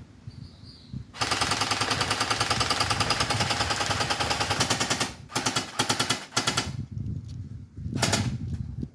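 Electric airsoft gun firing on full auto: one long burst of about four seconds starting about a second in, then a few short bursts, and one more short burst near the end.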